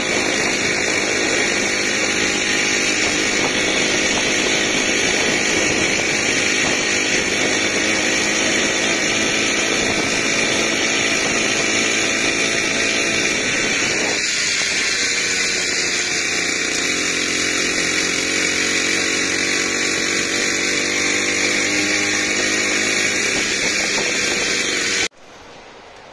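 Small grass-cutter engine fitted to a bicycle, running loud and steady while the bike is ridden. Its sound changes about halfway through and cuts off suddenly about a second before the end, leaving a much quieter background.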